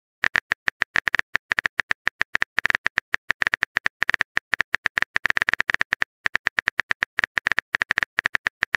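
Texting app's phone-keyboard typing sound effect: a fast, uneven run of short clicks, about eight to ten a second, as a message is typed out. There are brief pauses about two and six seconds in.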